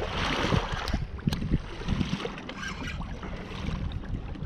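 Wind buffeting the microphone over small waves slapping against a boat's hull, a continuous uneven rumble. There are a couple of sharp clicks about a second in.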